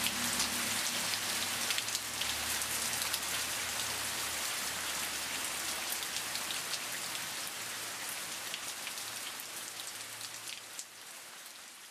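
Steady rain falling, with the ticks of single drops hitting close by, fading out gradually toward the end.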